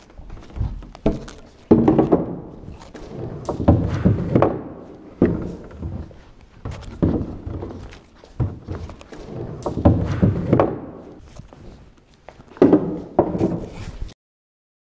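Handling noise from a handheld camera being jostled and carried: dull thumps and scuffing at an uneven pace of about one a second. The sound cuts off dead near the end.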